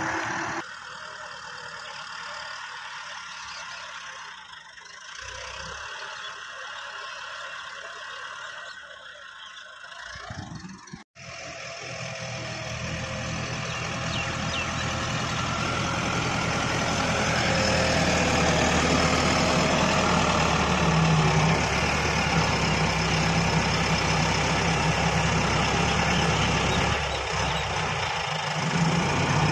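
Massey Ferguson 385 tractor's diesel engine working as its front blade pushes soil. For the first ten seconds it is quieter and more distant. After a brief drop-out about eleven seconds in, it runs louder and closer under load, building and then holding steady.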